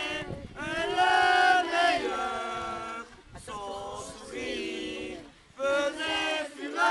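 A group of voices singing a chant together in drawn-out phrases, with short breaks between them.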